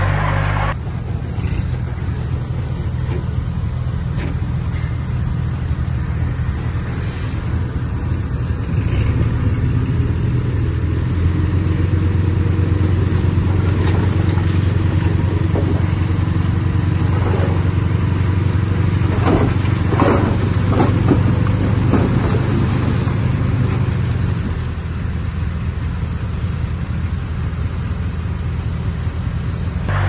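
Heavy-equipment diesel engine running steadily, growing louder about a third of the way in and easing off again near the end, with a few knocks about two-thirds through.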